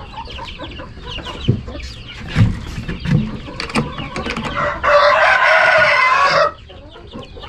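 Young chicks peeping, a busy run of short high falling cheeps; they are hungry, with their feed nearly gone. About five seconds in, a rooster crows once, loud, for about a second and a half, and stops abruptly.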